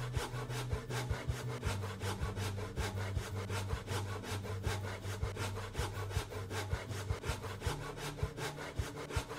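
Small hand saw cutting through the wing joint of a hollow plastic toy raptor, in quick, even back-and-forth strokes, about four to five a second.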